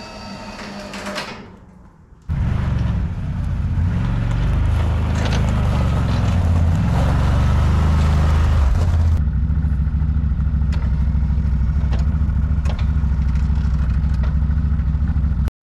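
CFMoto CForce 1000 ATV's V-twin engine running, noisier with hiss and clatter until about nine seconds in, then idling steadily; it cuts off abruptly at the end. A brief whine comes in the first second or so, before the engine starts.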